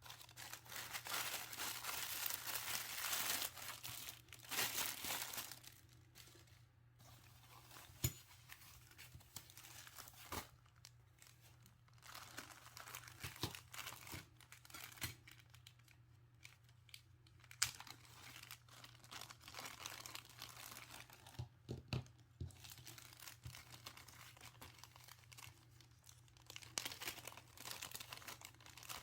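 Crinkling and tearing of plastic and paper packaging as stationery items are unwrapped and handled. It comes in irregular bursts of rustling with quieter gaps, and a few small sharp clicks.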